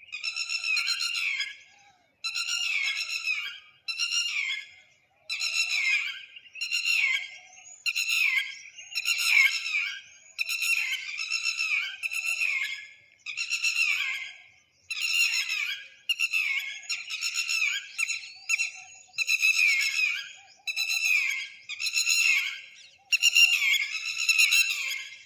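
A bird singing the same short, whistled phrase over and over, roughly every second and a half, while a second, fainter call with a rising whistle comes in twice.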